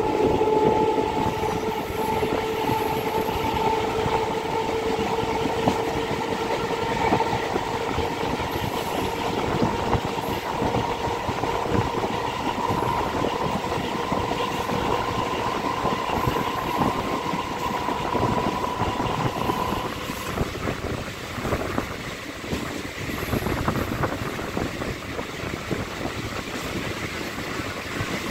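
Electric suburban train (EMU) running at speed, heard from its open doorway: wheels rattling over the rails, with a steady whine that slowly rises in pitch and cuts off about twenty seconds in.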